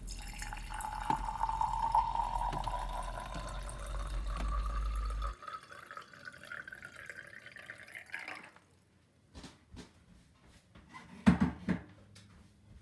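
Water being poured into a jar, the pouring tone rising steadily in pitch as the jar fills, stopping about eight seconds in. A few light knocks follow near the end.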